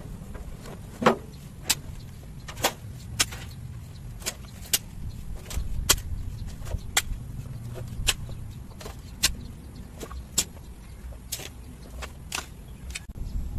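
Repeated sharp strikes of a hand tool working the garden, irregular and a little more than one a second, the loudest about a second in, over a steady low rumble.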